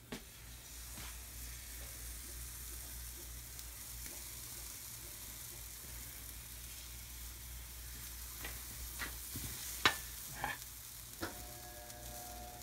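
Waffle batter sizzling steadily as it is ladled onto a hot cast iron waffle iron. A few sharp clicks near the end, the loudest about ten seconds in.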